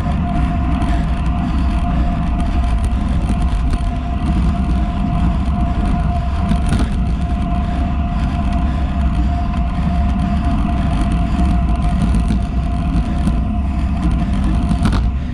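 Road bike rolling fast on tarmac: wind rushing over the camera's microphone and tyre noise, with a steady high hum.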